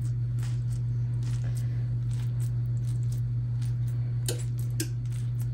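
Fingers poking dimples into oiled focaccia dough, making soft wet squishes and little sticky clicks, the sharpest two a bit over four seconds in. A steady low hum runs underneath throughout.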